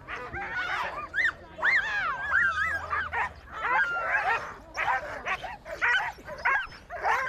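Many sled dogs barking, yipping and whining together in a continuous overlapping chorus of short high calls that rise and fall in pitch.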